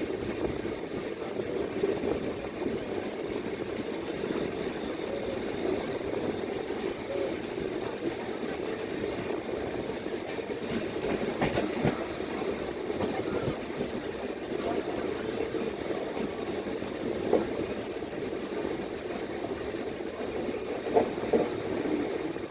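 Train wheels running on the rails: a steady rumble with a few sharp knocks, a couple of them near the end.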